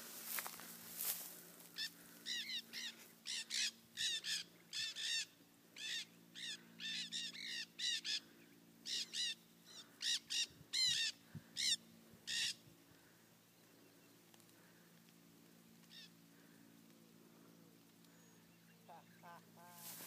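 A flock of parrots squawking in flight: a rapid run of harsh, grating calls from many birds that thins out and stops about two-thirds of the way through, with a single call a few seconds later.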